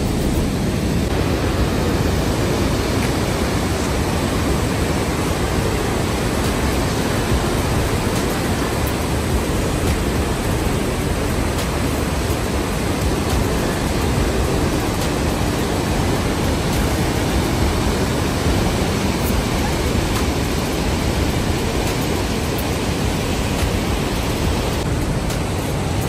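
Steady rushing of the Rhine Falls: a large river waterfall heard close up as a dense, even, deep noise with no breaks.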